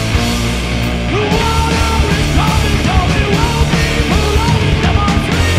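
A rock band playing loud heavy punk rock, with the drum kit and crash cymbals prominent. Pitched parts come in with sliding, bending notes about a second in.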